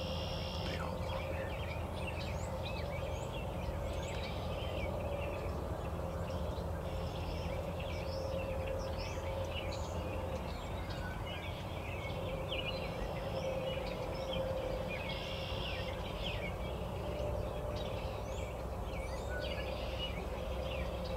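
Songbirds chirping and calling over a steady low rumble of wind, with a few longer calls near the start and again about four and fifteen seconds in.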